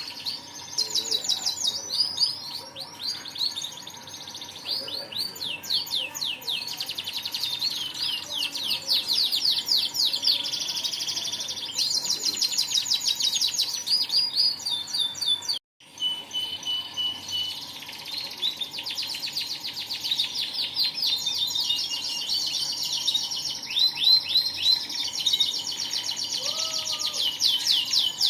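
Domestic canary singing nonstop in long, rapid trills and rolls of repeated high notes. This is the vigorous, sustained song that keepers call 'gacor'. The sound cuts out for a moment about halfway, then the song resumes.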